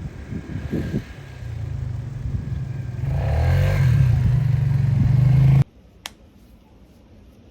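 Polaris Sportsman 450 ATV engine running and growing louder as it comes closer, with wind buffeting the microphone in the first second. The engine sound cuts off abruptly about three-quarters of the way through, leaving quiet room tone with a single click.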